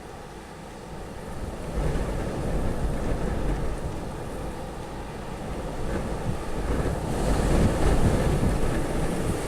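Storm wind blowing in gusts and buffeting the microphone. It swells about two seconds in, eases a little, then builds to its strongest gust near the end.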